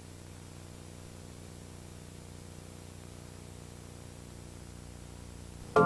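Faint steady electrical hum with light hiss. Music with drums cuts in suddenly at the very end.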